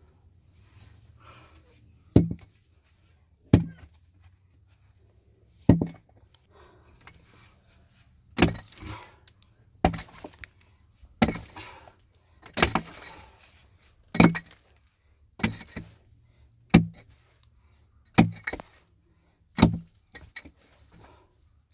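About a dozen hard blows, the first few spaced out, then one every second and a half or so, the later ones each followed by a short crunching rattle, like something being struck and broken up.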